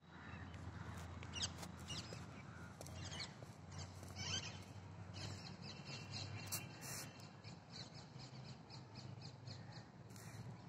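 Birds calling and chirping, with short calls scattered throughout and a quick run of repeated high notes in the middle, over a faint steady low hum.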